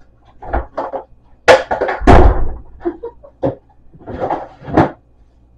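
Refrigerator door and containers knocking as food is put away in the fridge. A sharp clack comes about one and a half seconds in, followed at once by a heavy thud, then a few lighter knocks.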